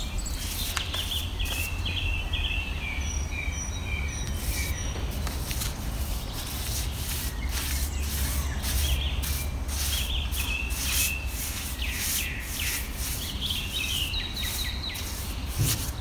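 Birds chirping in short runs of quick high notes, near the start, around ten seconds in and again near the end, over a steady low outdoor rumble. Frequent short scratchy rubbing strokes run throughout, fitting moisturiser being brushed or wiped onto the carved timber pole.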